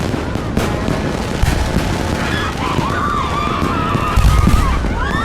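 Fireworks going off in a dense, continuous crackle of rapid pops and bangs. From about two seconds in, wavering whistle-like tones sound over the crackle.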